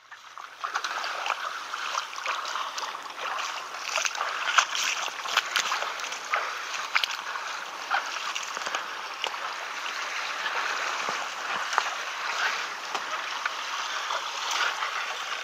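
Shallow seawater splashing and sloshing around boots wading through it, a steady wash dotted with many small sharp ticks and knocks.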